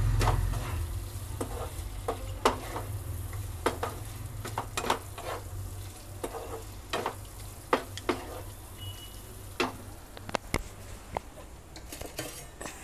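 Wooden spatula stirring and scraping fried capsicum and onion through thick masala gravy in a non-stick pan, giving irregular soft knocks and scrapes about once or twice a second, over a low sizzle of the masala frying in ghee.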